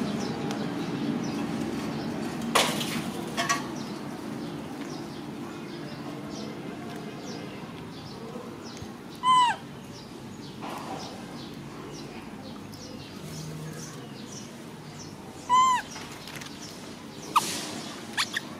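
Two short, squeaky animal calls about six seconds apart, each sliding up and then hooking down in pitch, over light clicks and handling noise.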